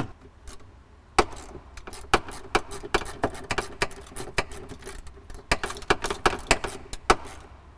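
Sharp, irregular clicks and knocks, about two a second, as a screwdriver works and pries at a stuck plastic interior trim piece and its plastic fastener. The fastener is stripped and stuck.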